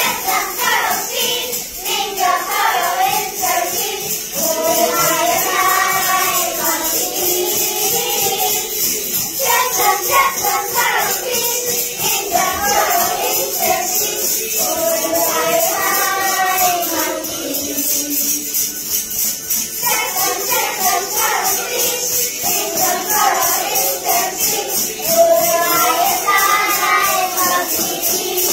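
A group of children singing a song in unison. Behind the voices runs a steady, rhythmic high jingling.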